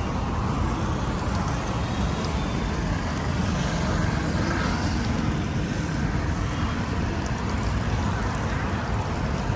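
Batter-coated green chillies deep-frying in a large iron kadai of oil, a steady bubbling sizzle, mixed with street traffic noise.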